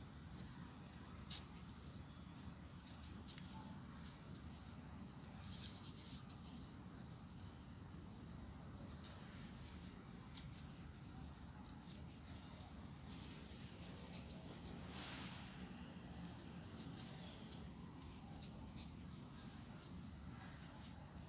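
Faint rustling and ticking of folded paper triangle units as they are handled and pushed into a 3D origami model, with one sharp tick just over a second in. A steady low hum lies underneath.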